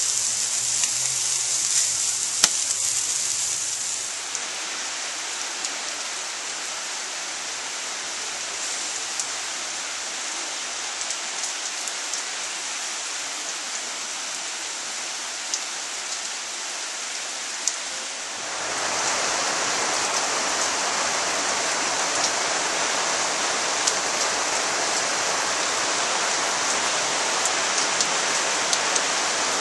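Steady rain falling and pattering on a wooden deck, railing and gas grill, with scattered sharp drips. For the first few seconds chicken sizzling on the grill adds a high hiss; a little past halfway the rain grows louder and fuller.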